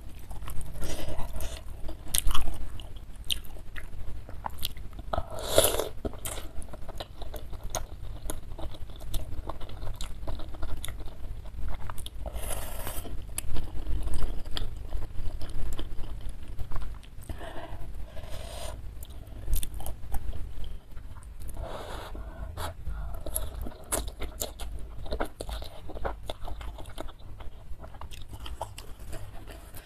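Close-miked eating of spicy instant noodles in broth: steady wet chewing and mouth clicks, with several longer slurps of noodles.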